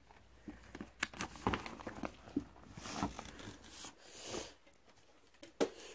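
Handling noise: rustling, crinkling and a few sharp light knocks as paper and small objects are handled, in short irregular bursts, with another click near the end.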